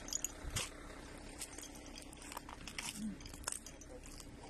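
Irregular crunching and crackling of footsteps over debris scattered on the ground, with a few sharper clicks, the loudest about half a second in.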